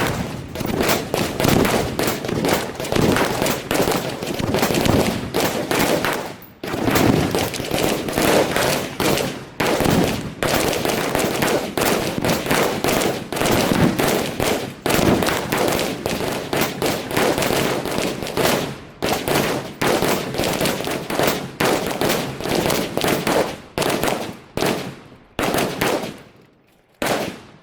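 Many rifles firing at once in a long, ragged volley of overlapping shots, with exploding targets going off among them. There is a brief lull about six seconds in, and the firing thins out and stops near the end.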